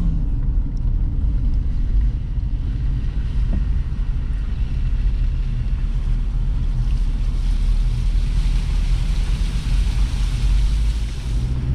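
Car driving through floodwater over the road, heard from inside the cabin: a steady low engine and road rumble, with a rush of water spraying against the wheel wells and underside that builds in the second half.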